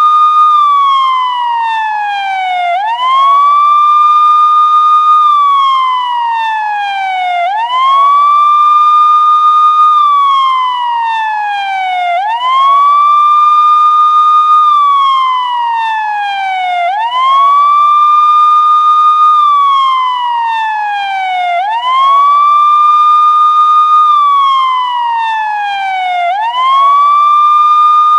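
Police siren wailing in a steady repeating cycle. The pitch climbs quickly, holds high for about two seconds, then slides slowly back down, about every four and a half to five seconds.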